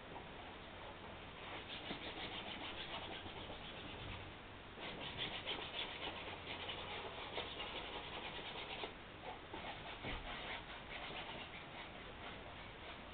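A drawing stick scratching and rubbing across a large canvas in quick, rapid strokes, busiest through the middle and lighter near the end.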